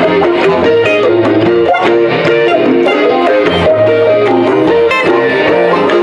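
A live rock band playing an instrumental passage: electric guitars out front over bass and a steady drum beat.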